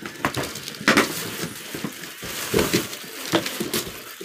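Gift wrapping paper crackling and tearing as a present is unwrapped by hand, in irregular rustles with a few louder rips.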